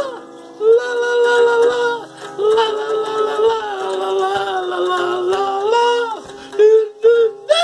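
A man singing a series of long, held notes, each about a second long, with an acoustic guitar playing under them.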